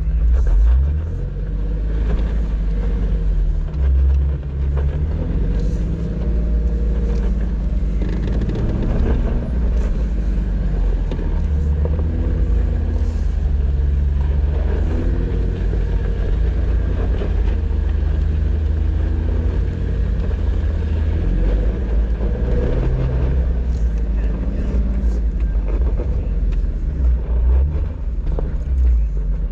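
Jeep engine and drivetrain rumbling low and steadily while crawling a dirt off-road trail, the engine note rising and falling repeatedly as the revs change.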